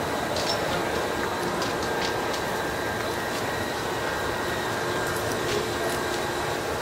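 Steady hum of a parked Seibu electric train, with faint constant whining tones and scattered light clicks.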